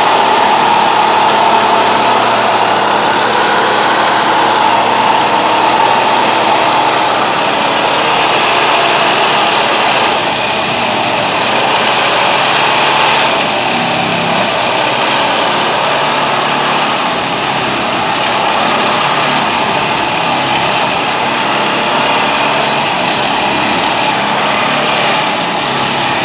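Plasser & Theurer Duomatic 08-32 C track-tamping machine running steadily, its engine and machinery giving a loud, even mechanical noise.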